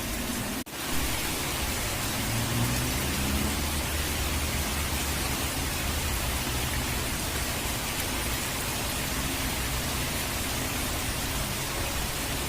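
Steady rain and rushing water, an even hiss over a low rumble, cut by a brief gap in the sound under a second in.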